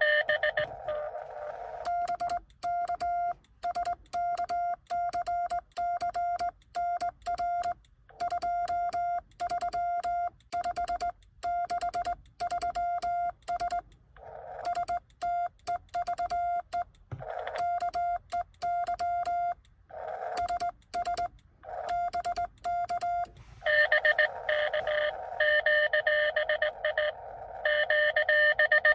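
Morse code sent on a home-brew cootie sideswiper key, heard as the Xiegu X6100's clean sidetone beeping on and off, with faint clicks from the key's contacts. In the first couple of seconds and the last few seconds, another station's Morse comes back through the receiver's narrow CW filter, a slightly lower beep over band hiss.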